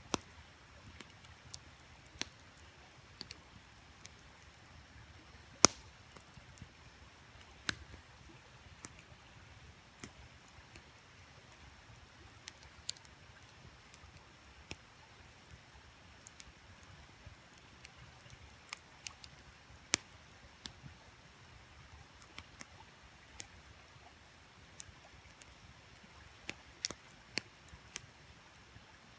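Wood fire crackling: irregular sharp pops and snaps, a couple much louder than the rest, over the faint steady rush of the creek.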